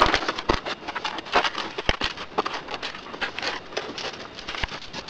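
Scissors cutting a paper template: irregular snips, with the paper rustling as the sheet is turned in the hand.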